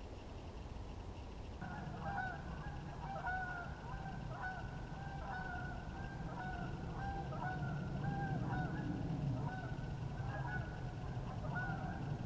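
A flock of geese honking, a steady run of overlapping calls that starts about two seconds in and carries on throughout.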